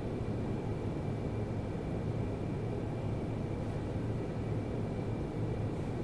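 Steady low room hum with a faint hiss, unchanging throughout, with a faint high whine.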